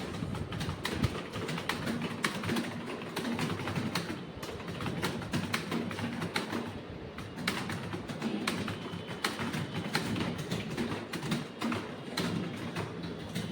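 Computer keyboard keys clicking in rapid, irregular succession: fast touch-typing.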